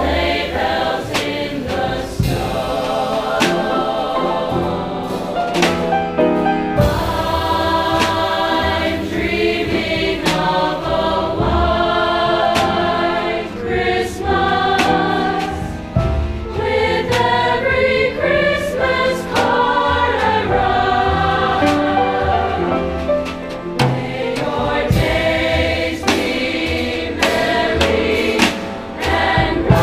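Large school choir singing with instrumental accompaniment, sharp percussive hits running under the voices, and short breaks between phrases.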